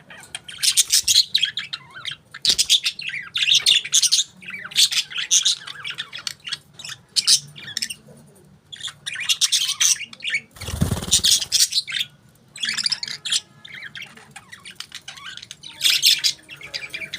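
Pet budgerigars (parakeets) chirping in repeated short bursts of high, rapid calls. About ten and a half seconds in, a brief noisy burst lasting about a second sounds over them.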